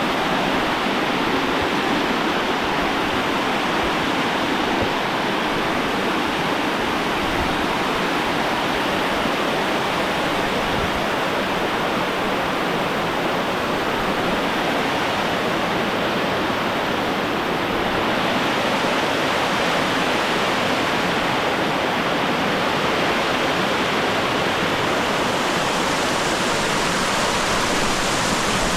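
Steady, loud rush of a tall waterfall, falling water crashing continuously.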